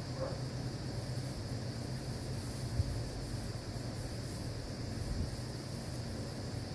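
Steady outdoor night ambience: an even high-pitched hiss over a low hum, with one brief low bump just under three seconds in.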